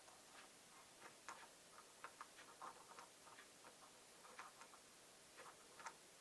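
Faint, irregular light clicks and ticks from small plastic propeller blades and their tiny screws being fitted to a DJI Mini 4K drone's motor with a small screwdriver.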